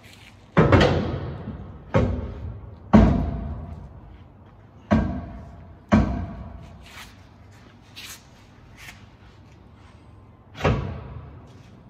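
Heavy welded steel rear bumper clanking and banging against the truck's frame mounts as it is fitted. About six loud, irregular metal impacts ring and echo off the concrete walls of the garage.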